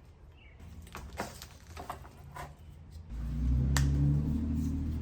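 A few light clicks and knocks, then a little after three seconds a steady low motor hum starts and carries on, much louder than what came before.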